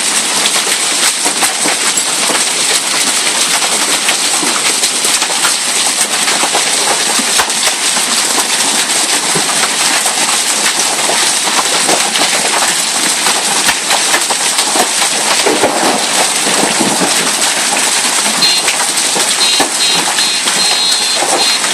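Hailstones pelting down hard in a dense, steady clatter of countless small ticks. Near the end, a car alarm joins in faintly with a rapid repeating beep.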